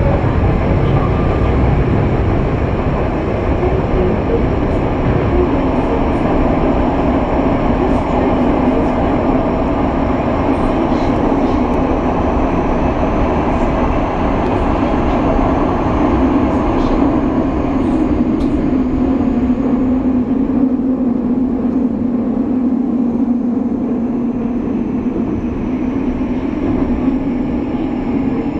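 Kobe Municipal Subway 6000-series train running through a tunnel, heard from inside the car: a steady rolling rumble of wheels on rail. A low hum grows stronger in the second half, over faint high whines.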